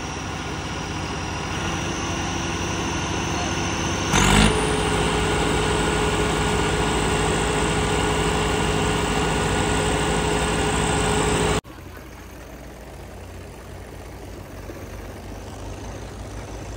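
Diesel tractor engines running. About four seconds in, one revs up quickly and holds a steady high speed. Near the end of that stretch the sound cuts abruptly to a quieter, steady engine drone.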